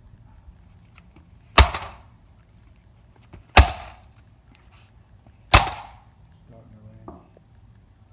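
Three hammer blows on the sheet-metal case of a DirecTV satellite receiver lying on concrete, about two seconds apart, each a sharp bang with a short tail.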